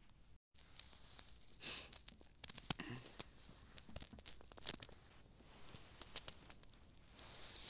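Footsteps crunching in snow: irregular crackles and sharp crunches, with a brief break in the sound just after the start.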